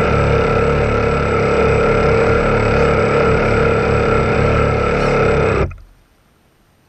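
Radio-controlled boat's motor running steadily under throttle, then cutting off sharply near the end.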